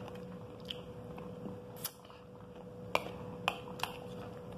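A metal spoon clicking against a glass plate as pomegranate arils are scooped up: about five or six sharp, separate clicks at irregular intervals.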